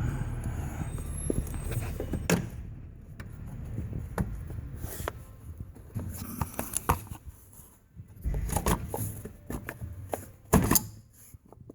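Plastic truck fuse box being handled and pressed down into its tray under the hood: scattered clicks, knocks and scrapes of plastic, with the loudest knock near the end as the box seats.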